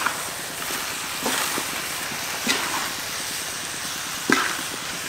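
Chicken and cactus strips sizzling steadily in a wok while a metal spatula stirs them, scraping and knocking against the pan about four times.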